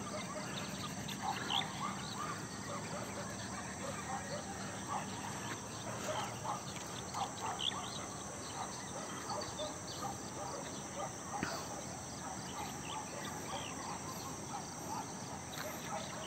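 Steady high insect chorus, cricket-like, with scattered short bird chirps over it.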